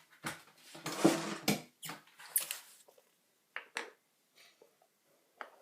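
Handling noise of a computer hard drive and loose parts on a work surface: scraping and rustling with several knocks for the first few seconds, then a few light clicks.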